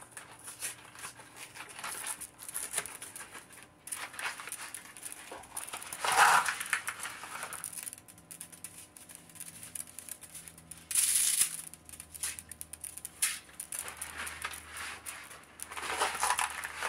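Dry linguine noodles and their packaging being handled, with many small clicks and crinkles and a few louder rustles; near the end the linguine goes into the pot of hot water.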